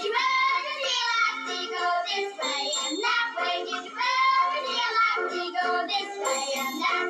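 Children's song: children's voices singing over light instrumental backing, the singing coming in right at the start after an instrumental passage.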